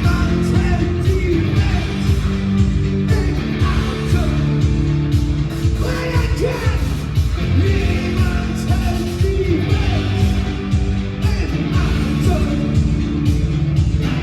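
Loud live rock music: sustained chords over a steady pounding beat, with yelled singing.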